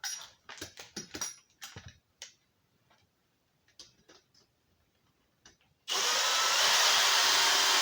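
A few light clicks and knocks of parts being handled. About six seconds in, a power drill starts and runs steadily, driving a screw to mount an electrical box.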